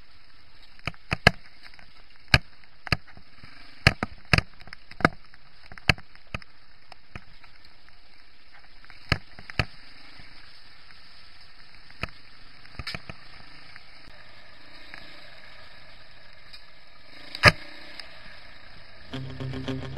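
Irregular sharp knocks and clicks over a steady low hiss from an action camera jolting along a rocky, overgrown trail, with branches passing close to the lens. The knocks come thick in the first few seconds, sparser later, with the loudest one near the end; guitar music starts just before the end.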